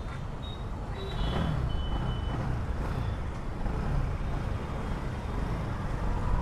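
Bajaj Pulsar NS200's single-cylinder engine running during a ride through city traffic, a steady low rumble that grows a little louder about a second in. A few short, faint high beeps sound about a second in.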